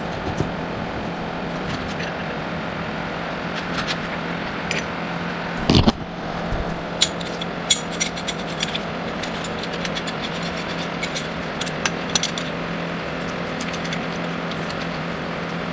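Steel hand tools clinking and knocking on metal, with one sharp knock about six seconds in and a run of clinks soon after, over a steady hum. This is a bearing puller being worked on a front wheel-hub bearing's inner race.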